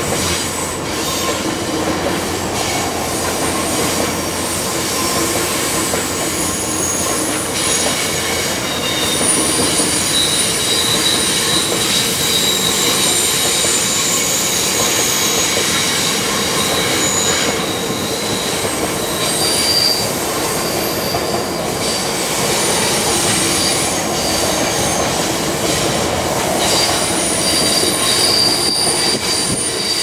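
Budd-built stainless-steel passenger cars of VIA Rail's Canadian rolling past on a curve: a steady rumble and clatter of steel wheels on the rails, with high wheel squeal that comes and goes and shifts in pitch.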